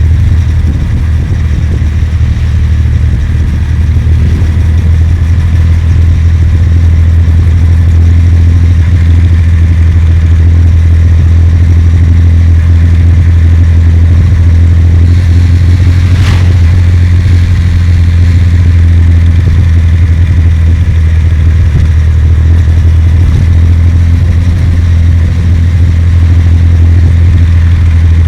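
Kawasaki W800's air-cooled parallel-twin engine running at a steady, even pitch while the motorcycle cruises. A single sharp click comes about halfway through.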